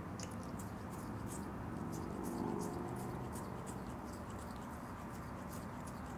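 Opossum grooming itself: quick wet licking and smacking clicks, about three a second, with one brief louder sound near the middle.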